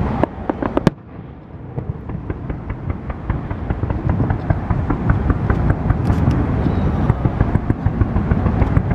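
Fireworks going off in a barrage, a few sharp bangs at the start, then a brief lull, then bangs and crackles coming thick and fast from about four seconds in, over a steady low rumble.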